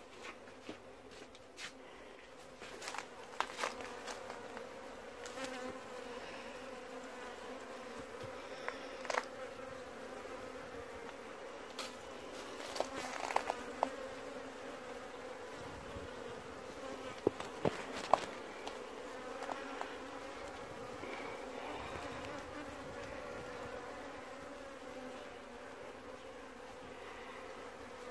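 Honeybee swarm buzzing steadily as it gathers around its caged queen, with a few sharp clicks and knocks scattered through, the loudest about halfway and two-thirds of the way in.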